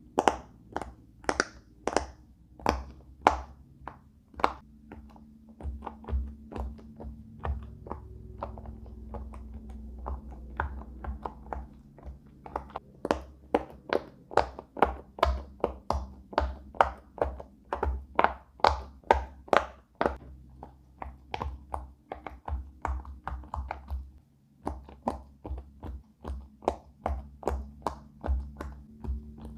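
Silicone pop-it fidget toy bubbles being pushed in one after another: a steady run of sharp pops, two to three a second, over background music.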